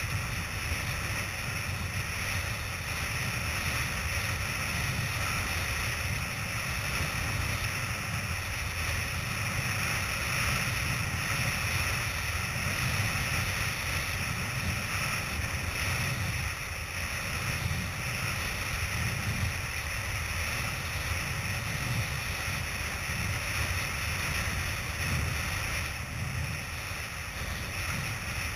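Steady wind noise buffeting the microphone of a kiteboarder's camera, with a low, fluctuating rumble and the rush of the board skimming over choppy sea water.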